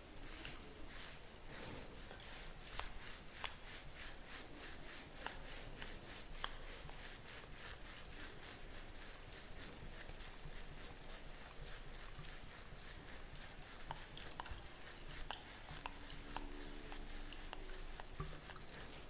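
Fingernails scratching through a beard close to the microphone, in quick, even strokes at about four a second.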